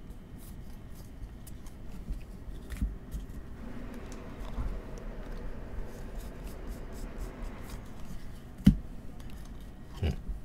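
A stack of baseball trading cards being flipped through by hand, the cards sliding and clicking against one another, with a sharper snap near the end.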